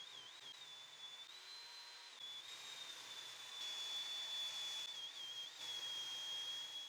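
Table saw running faintly, a thin high whine that wavers and dips in pitch over a soft hiss that swells a little about two and three and a half seconds in.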